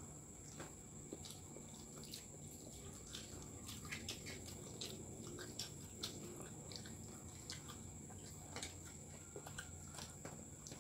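Two children eating rice and chicken with their fingers: faint chewing, with many small irregular clicks of mouths and fingers. A steady high-pitched whine runs underneath.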